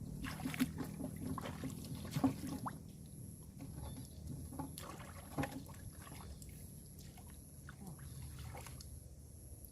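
Water splashing and sloshing in shallow river water, with many short splashes and knocks in the first few seconds that thin out later, over a steady low hum.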